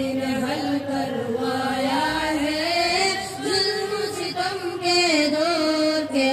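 A group of boys singing an Islamic gojol (devotional song) together into microphones, in long held notes. The melody rises in pitch about two seconds in and falls back near the end.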